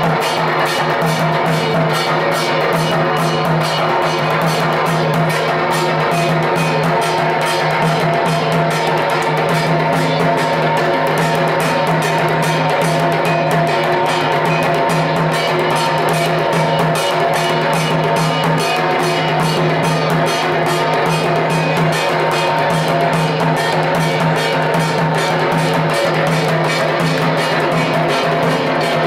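Dhak, the large Bengali barrel drum, beaten in a fast, unbroken rhythm of rapid strokes.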